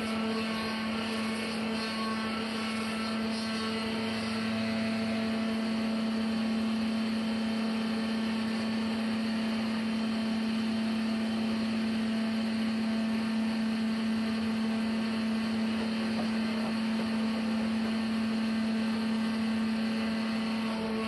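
Sawmill machinery running steadily: a constant hum with a steady rushing noise over it, getting slightly louder about four seconds in.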